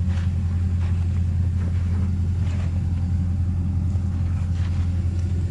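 Excavator's diesel engine running steadily, a low rumble that does not change, with a few faint crunching steps on loose rock.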